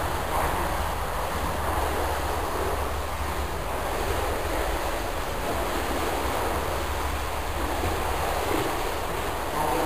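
Steady splashing and churning of pool water from several swimmers kicking and stroking, over a constant low hum.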